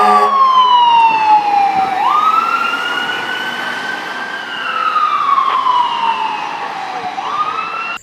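Fire truck siren wailing, falling slowly in pitch, rising again about two seconds in, falling once more and starting another rise near the end. A steady horn blast cuts off just after the start.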